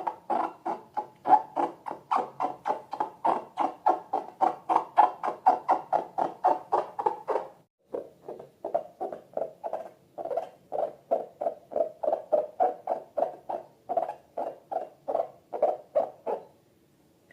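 Slime being worked by hand, squelching in an even rhythm of about three squishes a second, with a brief break partway through.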